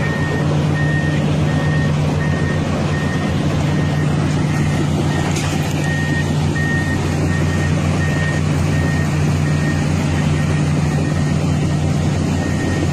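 A heavy diesel engine running steadily, with a reversing alarm beeping about twice a second in runs that stop and start again.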